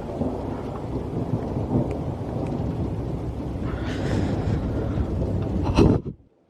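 Thunder rumbling low and continuously over rain, then cutting off suddenly near the end.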